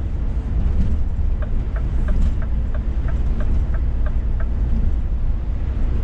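Scania S500 truck driving, heard from inside the cab as a steady low drone of engine and road noise. A run of light, evenly spaced ticks, about three a second, comes through the middle.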